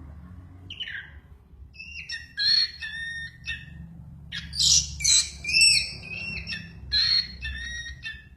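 A songbird singing vigorously in a run of short chirping, warbling phrases, with several loud bursts in the middle and near the end. Its song is one the owner jokingly says sounds drunk.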